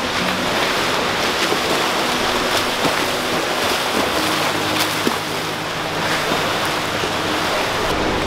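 Swimmers splashing through butterfly strokes in an indoor pool: a steady wash of churning water, with a few sharper splashes.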